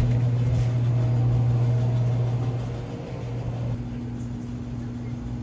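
A steady low mechanical hum with a click at the start; it drops to a fainter, higher hum a little under four seconds in.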